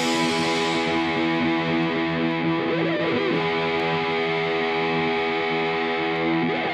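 Background music: a distorted electric guitar holding long, steady chords.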